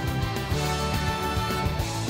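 Background music with a steady beat and many instruments.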